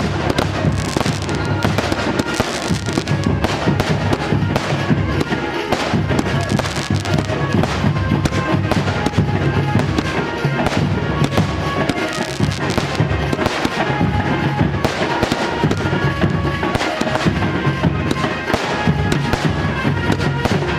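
A long, rapid string of firecrackers crackling without a break, over loud music with a steady beat.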